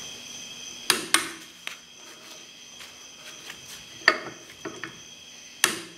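Click-type torque wrench on a spindle nut socket, tightening a Dana 60 front axle's inner spindle nut, which sets the wheel bearings, to 50 ft-lb. A few sharp metallic clicks and clacks, two about a second in, one near four seconds and the last near the end, as the wrench reaches its setting.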